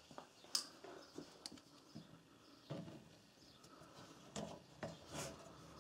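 Faint, scattered clicks and light knocks of hands handling a plastic recoil starter and needle-nose pliers while a new pull cord is threaded through the pulley.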